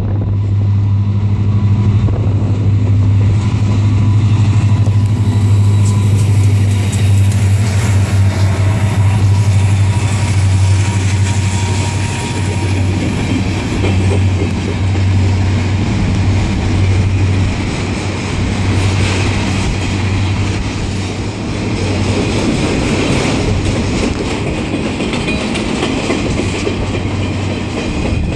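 Freight train passing close by. A pair of diesel locomotives goes by with a steady low engine drone, which fades about halfway through as a long string of autorack cars rolls past, their wheels clattering over the rail joints.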